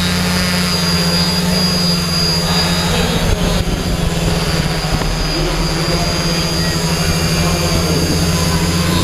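Steady hum of a multirotor camera drone's motors and propellers, with a thin high whine above it.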